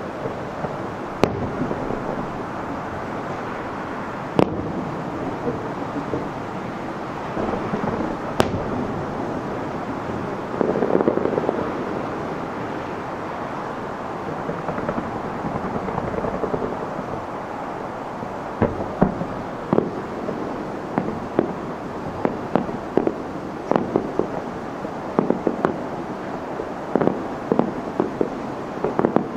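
Aerial fireworks shells about 2.5 km away. Three single sharp bangs come about a second in and at about four and eight seconds, over a steady low rumble, and from about two-thirds of the way through a quick, irregular run of popping reports builds toward the end.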